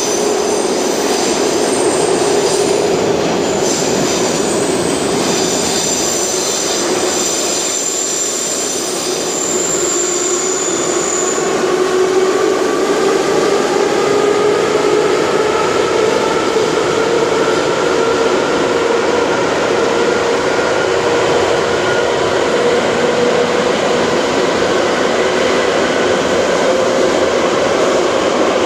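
Ezh3 (Em-508T) metro train running in a tunnel, heard from inside the car: a steady loud rumble of the running train, with a high squeal over the first ten seconds or so and a whine that then rises slowly in pitch as the train gathers speed.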